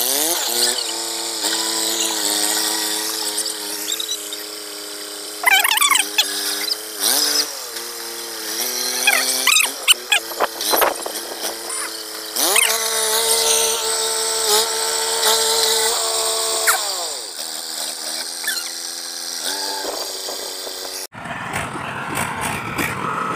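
Eicher 380 tractor's diesel engine running as it pushes earth with a rear grading blade, its pitch rising as it revs up and falling as it eases off, with a few clanks partway through. Near the end the sound changes abruptly to a rougher, noisier rumble.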